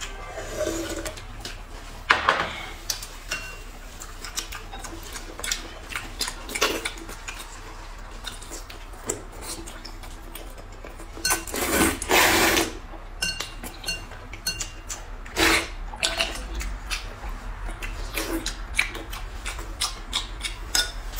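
Two people eating noodles with chopsticks: slurping and sucking up food, with short clicks of chopsticks and bowls. The loudest sound is a longer slurp about halfway through.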